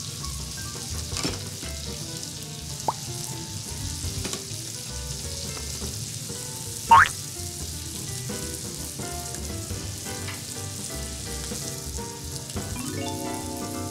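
Thick steak searing in foaming butter on a flat-top steel griddle, with a steady frying sizzle. A brief, sharp pitched sound stands out about seven seconds in.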